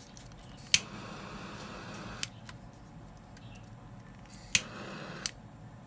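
A gas lighter struck twice. Each time a sharp click is followed by a short hiss of burning gas, about a second the first time and shorter the second.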